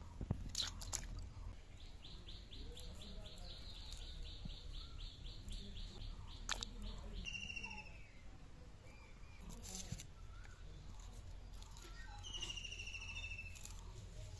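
A knife cutting through fresh cauliflower florets and stalks, with three sharp crunches in the first second and single ones about halfway and near the end. Small birds chirp in the background, with a rapid trill early on and two quick runs of chirps later.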